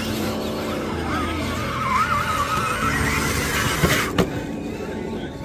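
Background music over the whine of a scale RC crawler truck's electric motor, rising and falling in pitch; two sharp knocks a little after four seconds in.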